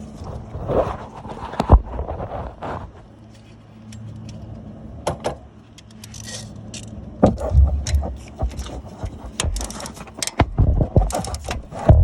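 Metal hand tools clinking and knocking against each other and the engine while loosening the 12 mm bolts of the A/C compressor bracket. There are scattered clicks, a sharp knock about two seconds in, and a busy stretch of clatter in the last five seconds.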